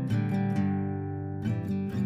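Background music: acoustic guitar strumming chords, with a few sharp strums near the start and again from about one and a half seconds in, the chords ringing on between them.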